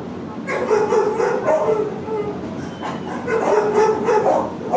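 Shelter dog howling in a kennel: two drawn-out, wavering howls, the first starting about half a second in and the second about three seconds in, over background kennel noise.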